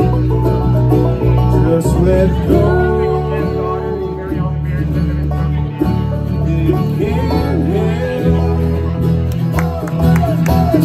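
Live bluegrass band playing, with banjo, mandolin, acoustic guitar and electric bass.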